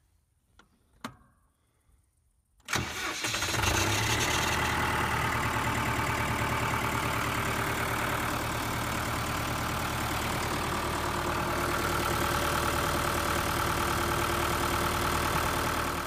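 A John Deere 5520's four-cylinder diesel engine starts suddenly about three seconds in and settles into a steady idle. It is running again now that the shorted cold start sensor, which had been blowing the fuel pump fuse and stopping it from starting, has been replaced.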